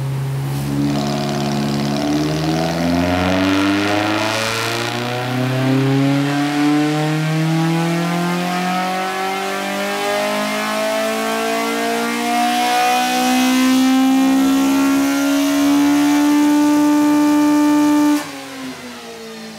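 Toyota 1NZ 1.5-litre four-cylinder from a Prius, breathing through four individual throttle bodies, pulling at full throttle on a rolling-road dyno. Its note climbs steadily in pitch for about 17 seconds toward 9000 rpm. Near the end the throttle shuts suddenly and the revs fall away.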